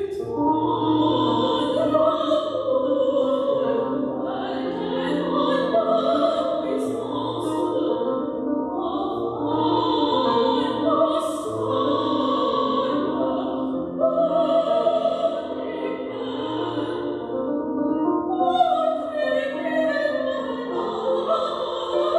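A woman singing in operatic style with vibrato, in long phrases, accompanied by an electronic keyboard played with a piano sound through a small amplifier.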